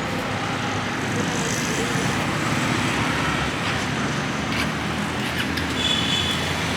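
Road traffic noise: a steady rush of passing vehicles' engines and tyres.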